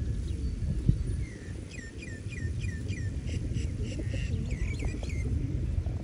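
A small bird chirping repeatedly: a run of short notes, each falling in pitch, about four a second, starting after a second and stopping near the end. Under it, a steady low rumble of traffic.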